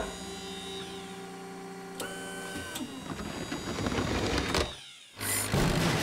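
Cartoon sound effects of a mobile crane's winch motor whining steadily as it lifts timber posts. This is followed by a backhoe loader's engine running, which cuts out briefly near the five-second mark and comes back louder.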